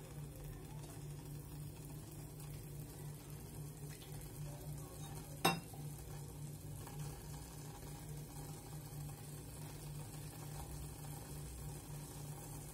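Faint sizzle of a thick coconut-and-dried-prawn masala frying in a steel pot, over a steady low hum, with one sharp metal clink about five and a half seconds in.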